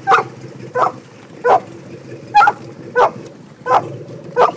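A dog barking repeatedly and evenly, seven sharp barks at about one and a half per second.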